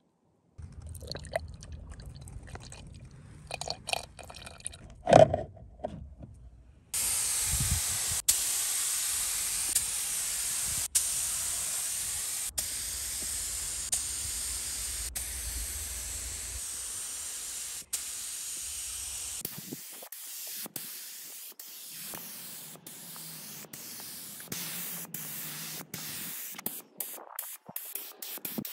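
Gravity-feed air spray gun hissing steadily as it sprays grey paint, starting about seven seconds in after a few handling clicks and one sharp knock. The hiss turns quieter and broken up from about twenty seconds in.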